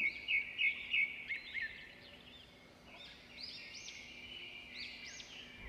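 Small birds chirping: short, quick high chirps in clusters, falling away for about a second midway and then picking up again.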